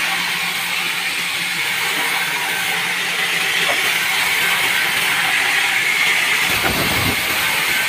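Vertical band saw running and cutting through a bark-edged wooden slab, a steady loud hissing whine. There is a low thump about seven seconds in.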